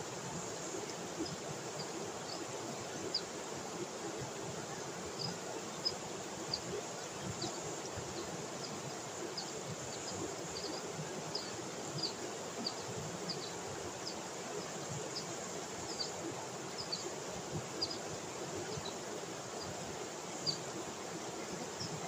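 River rapids rushing over rocks, a steady watery rush, with short high chirps scattered throughout.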